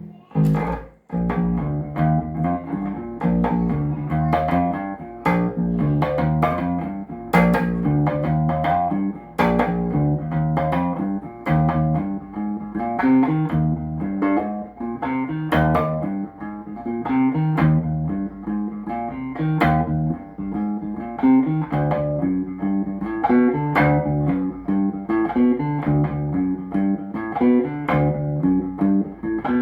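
Golden electric bass guitar playing a continuous line of plucked notes as a sound test after servicing, with a brief break about a second in.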